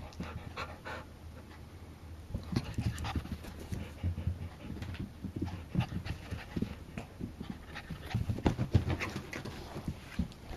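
A dog panting in short, uneven breaths, with a few soft knocks mixed in.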